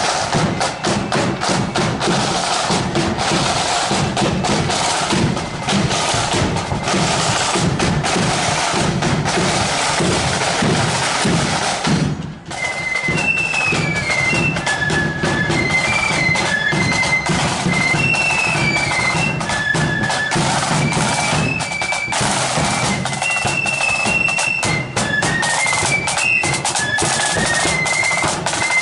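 Marching flute band: side drums rattling and a bass drum beating steadily, with a high flute melody coming through clearly after a brief break about 12 seconds in.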